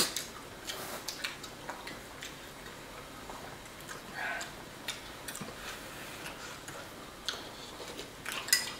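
Scattered light clicks of chopsticks and a ladle against a small ceramic bowl and a metal hot pot, with one louder clink at the start, amid quiet eating.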